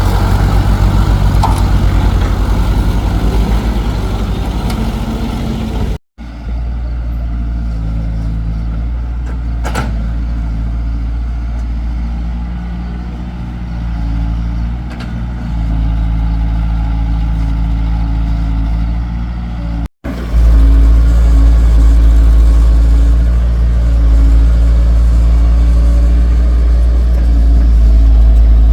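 Excavator's diesel engine running steadily with a deep hum. The sound cuts out abruptly twice, about six seconds in and again near twenty seconds, and comes back louder after the second cut.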